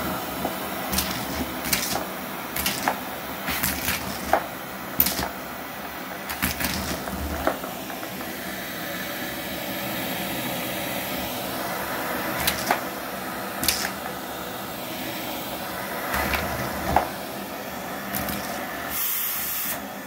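Canister vacuum cleaner running steadily through its bare hose wand while small plastic toys and beads are sucked off a carpet, each one clattering sharply into the nozzle and hose at irregular moments. A brief louder hiss comes about a second before the end.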